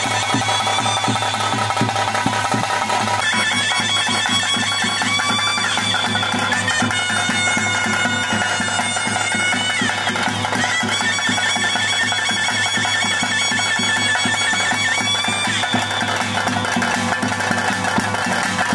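Traditional ritual music: a reedy double-reed pipe plays long held notes that step from pitch to pitch over a steady drone, with drums beneath.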